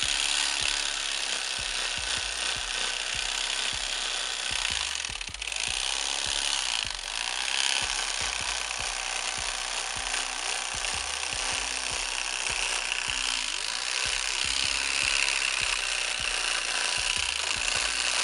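Electric fillet knife running steadily, its motor buzzing as the reciprocating blades saw through the side of a bowfin.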